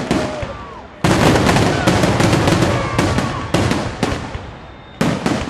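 Fireworks grand finale: a loud shell burst about a second in, followed by dense crackling and popping that fades away, then another loud burst near the end.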